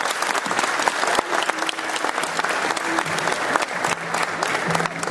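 An audience applauding: dense, steady clapping from many hands. A low steady tone joins about two seconds in.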